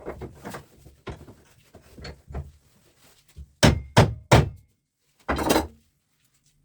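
Hand tools hammering and knocking on the steel of an electric fan motor to free its copper winding: a series of lighter knocks, then three hard strikes about a third of a second apart, and a last, longer impact lasting about half a second.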